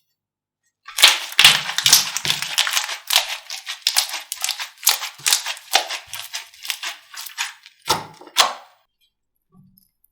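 Slime being squeezed and pressed by hand, giving a dense run of crisp crackles and clicks that starts about a second in, with two sharper snaps near the end.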